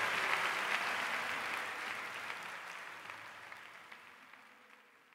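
Live audience applauding at the end of a song, the clapping fading steadily away.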